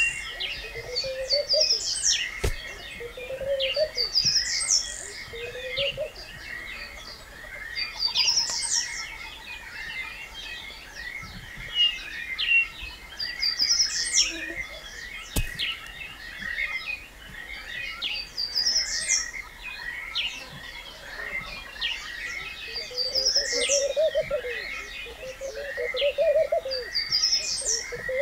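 Birds calling in the bush: a high, rising phrase repeated about every two seconds, with a lower call joining at the start and again near the end, over a steady high background hum.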